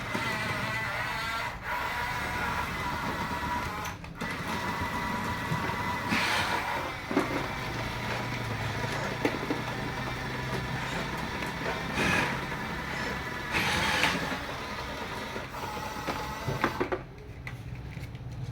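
Small electric gear motors of radio-controlled toy construction vehicles whining and grinding, with several short louder bursts of noise.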